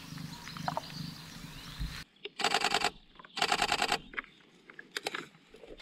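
Camera shutter firing in two rapid continuous-shooting bursts of about half a second each, roughly a second apart, followed by a few single faint clicks. Before the bursts there is only a faint steady background that cuts off about two seconds in.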